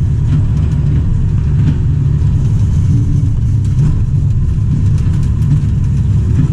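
1995 Mitsubishi MS110 excavator's diesel engine running steadily under load while the operator works the hydraulic controls through a dig cycle, heard loud from inside the cab.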